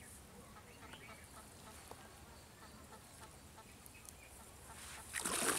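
A few faint bird calls over quiet ambience, then water sloshing and splashing near the end as a cast net is hauled up out of the pond.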